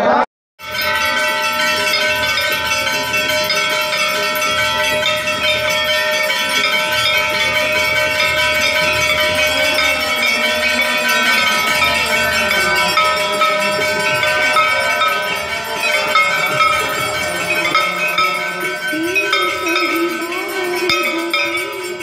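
Temple bells for an aarti ringing continuously, many bells struck rapidly together into a dense clanging. A steady low note comes in near the end.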